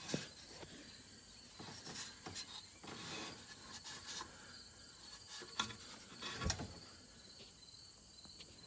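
Faint, steady high-pitched insect chirping, with scattered knocks, clunks and rustles of hands and a wrench working at a golf cart's oil drain bolt; the loudest knocks come right at the start and between five and seven seconds in.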